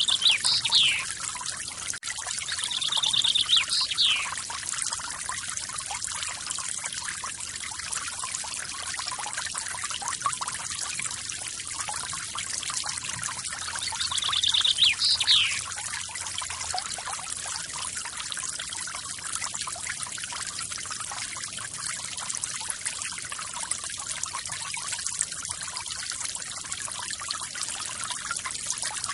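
Waterfall water falling and splashing in a steady hiss. A bird calls three times over it, each call a short trill followed by a quick downward sweep.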